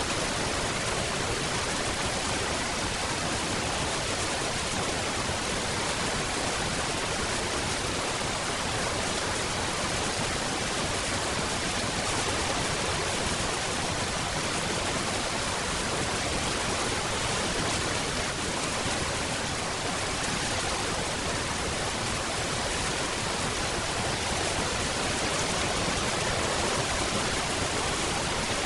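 Steady rain falling, an even dense hiss with no distinct drops or changes.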